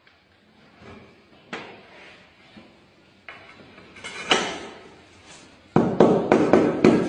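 Knocks and taps on ceramic floor tiles being set in mortar: scattered faint knocks at first, then near the end a fast run of loud taps, about five a second.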